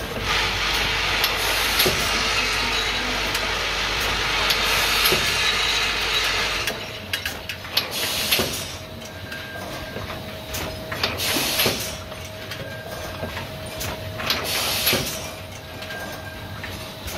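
Machinery on a cosmetic-oil bottle-filling line. A loud steady hiss over a low hum runs for the first six or seven seconds and cuts off abruptly. A steady faint hum follows, with scattered clicks and a short hiss about every three seconds.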